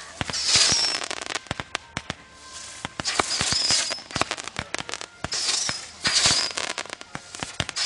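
Fireworks going off in a backyard show: a dense run of sharp pops and crackles, with four louder hissing surges.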